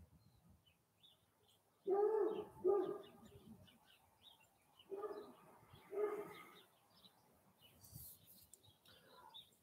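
A dove cooing: four short low coos, the first pair about two seconds in and another pair a few seconds later, with faint small-bird chirps in between.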